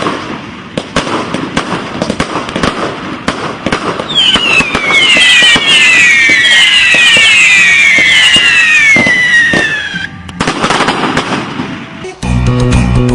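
Fireworks: a rapid run of crackling bangs, then about four seconds in a volley of overlapping whistles that fall in pitch for some six seconds, then more crackling. Music with guitar and bass comes in near the end.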